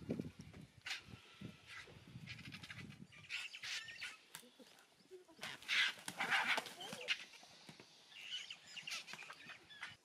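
A crowd of vultures squabbling over a carcass: harsh hisses, squeals and squawks, loudest around six seconds in, with wing flapping. Low growling sounds run through the first few seconds.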